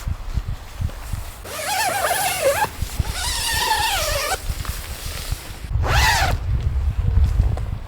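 A young puppy whining three times, in long high cries that fall in pitch, the last one short. A low wind rumble on the microphone runs underneath and grows heavier near the end.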